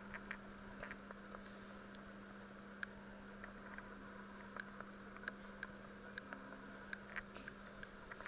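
Quiet room tone: a steady low hum with scattered faint clicks and ticks.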